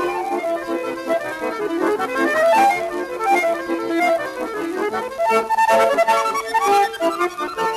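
Lively accordion music with fast running melody lines over sustained chords.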